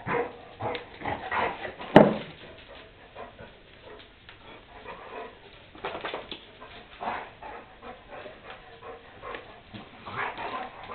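Two dogs play-fighting, vocalizing in short irregular bursts of whines and barks. A single sharp knock about two seconds in is the loudest sound.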